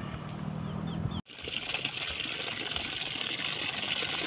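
Irrigation water gushing out of a PVC pipe outlet and splashing into a muddy ditch, a steady rushing that starts abruptly about a second in. Before it, a steady low hum and a short bird chirp.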